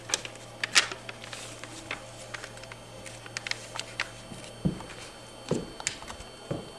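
Sheet of paper being folded and creased by hand: scattered short crinkles and crackles, with three soft thumps in the second half.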